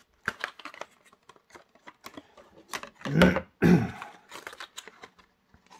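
Clear plastic blister packaging and plastic film crinkling and clicking as a boxed model locomotive is lifted out by hand. About three seconds in, a man's voice murmurs briefly twice.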